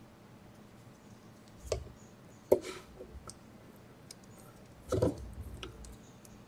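A few light clicks and knocks of small parts handled on a tabletop: a thread-locker bottle set down and small machine screws fitted into a stepper motor and its rubber damper. The sharpest click comes about two and a half seconds in, and another cluster comes about five seconds in.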